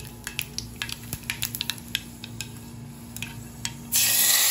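Mustard seeds and dried chillies crackling in a pan of hot coconut oil, with scattered sharp pops. About four seconds in, a loud hiss begins as the hot tempering is poured into the chicken curry and sizzles.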